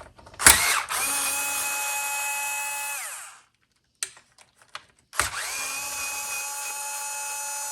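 Power drill driving out two screws in two steady whirring runs of about three seconds each. The motor winds down in pitch as each run ends.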